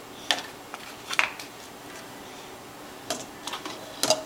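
A few light clicks and knocks of dishes and dishwasher rack items being handled, spaced out with quiet between and clustering near the end.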